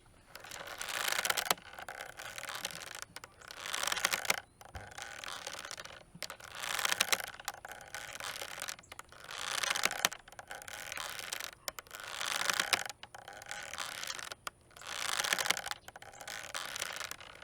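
Hangman's rope creaking under the weight of a swinging load. Drawn-out creaks come about every one and a half seconds, alternating stronger and weaker as it sways back and forth.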